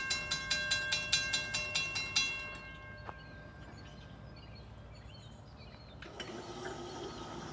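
Railroad crossing warning bell dinging rapidly, about four to five strikes a second, then stopping about two seconds in. The crossing has re-activated after the train passed, which the filmer takes for a malfunction. A low steady hum starts about six seconds in.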